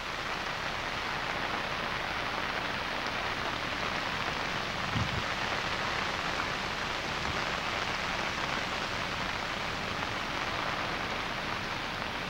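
Steady rain falling on standing floodwater, an even hiss of drops hitting the water's surface.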